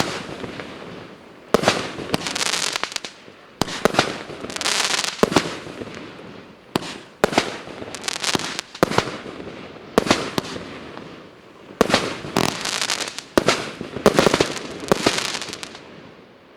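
A 36-shot 1.2-inch firework cake firing its shots in sequence: a sharp bang about every one to two seconds, each followed by a second or so of noise from the burst as it fades. The volley dies away near the end.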